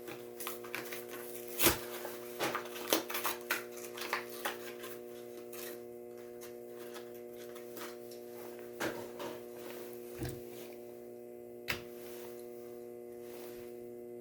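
Crinkling and clicking of plastic and cardboard toy-car packaging being opened and handled, busy for the first five seconds and then only a few scattered clicks, over a steady electrical hum.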